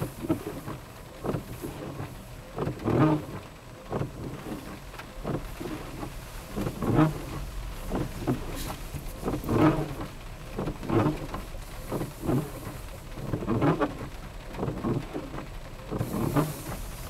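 Rain on a car heard from inside the car as it drives, with a short low pulse coming back about every one and a half seconds.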